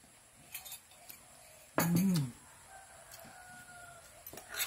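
A woman hums a short "mm" while eating, with a few light clicks of a spoon and mug. A rooster crows faintly in the distance for about a second just after the hum.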